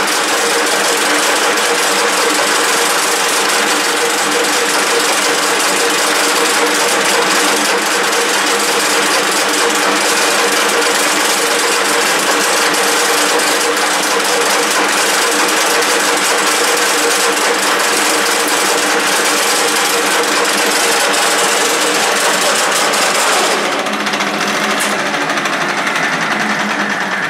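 1K62 screw-cutting lathe running under power, a steady mechanical din with constant hum tones from its geared headstock. A few seconds before the end the sound changes and much of the high hiss drops away.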